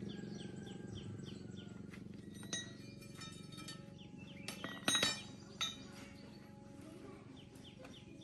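Metal clinks and taps, a few scattered and then a cluster about five seconds in, the loudest, with a ringing tail. A low steady hum slowly fades underneath, and birds chirp repeatedly.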